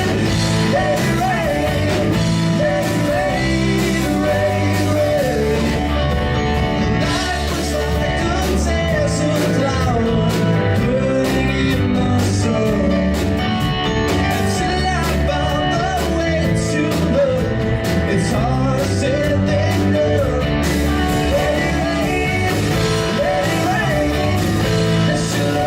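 Live blues-rock band playing loudly: electric guitar with a bending melody line over bass and drums.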